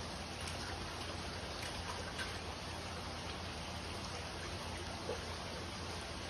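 Steady trickling and rushing of water circulating in a large saltwater aquarium, with a low steady hum underneath.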